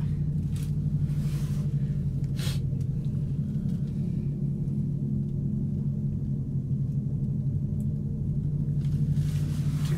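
A vehicle's engine running steadily: a low, even drone, with a few faint rattles in the first few seconds.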